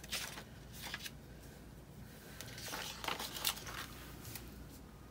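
Paper and sticker sheets rustling and scraping as they are handled, in a few short bursts, the longest a little after the middle.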